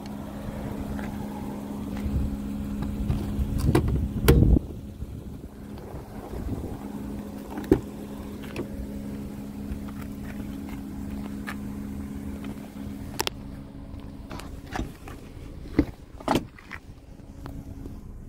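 Clicks and knocks from handling a 2019 Subaru Outback's rear door and folding rear seat back, with a heavier thump about four seconds in. A steady low hum runs underneath and fades after about two-thirds of the way through.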